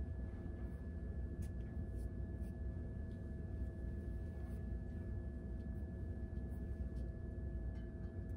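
Steady low room hum with a faint, even, high whine. A few faint ticks and soft rustles come from hair being handled and twisted by hand.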